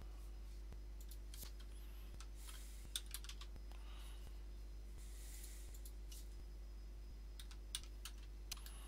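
Computer keyboard keystrokes and mouse clicks, scattered and irregular, with the sharpest clicks about three seconds in and again near the end, over a steady low electrical hum.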